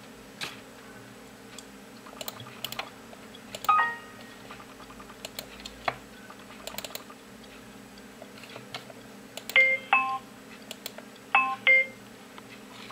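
Computer mouse clicking, with a few short electronic beeps: one about four seconds in and two pairs near the end.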